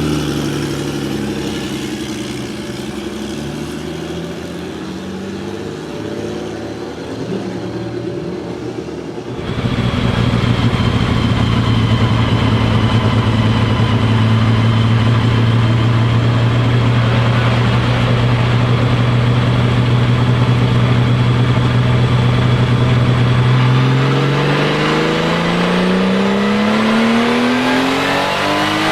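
Porsche 935 K3's turbocharged flat-six engine. Its note falls at first, then about nine seconds in it jumps to a loud, steady drone at constant engine speed. Near the end the drone rises steadily as the car accelerates.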